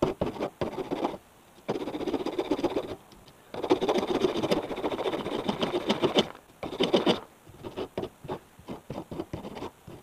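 Hand file rasping over the hacksawn edges of short aluminium tube pieces to deburr them: a few strokes, two longer spells of steady filing, then a string of short separate strokes near the end.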